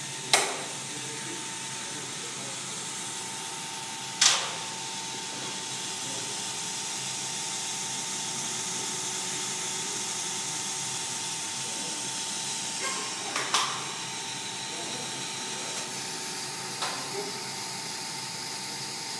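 Tattoo machine running steadily for lining, a constant hum over a hiss. A few sharp clicks or taps break in, the loudest about half a second and four seconds in, then a smaller cluster later.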